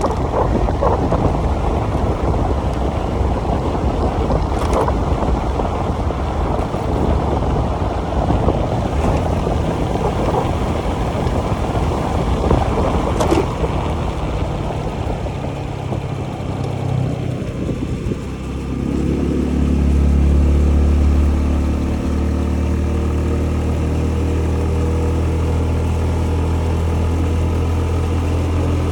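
Wind buffeting the microphone on a moving Honda Zoomer 110 scooter, with its single-cylinder engine underneath. About two-thirds of the way in, the wind dies away and the engine is left running at a steady, even note.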